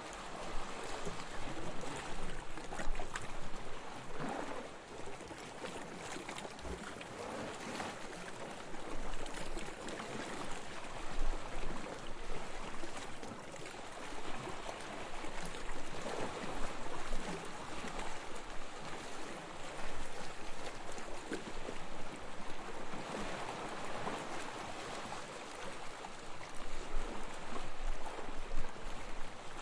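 Gentle waves washing onto a beach, the surf rising and falling in soft swells every few seconds.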